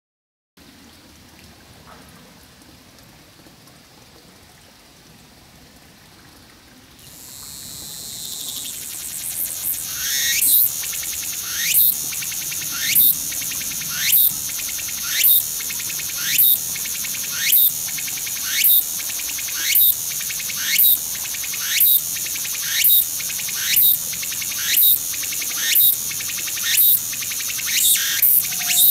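Tsukutsukuboushi cicada (Meimuna opalifera) starting its song close by: after a few quiet seconds a buzz swells up about seven seconds in, then settles into the species' repeated phrase, a sharp rising call about once a second, coming a little faster near the end.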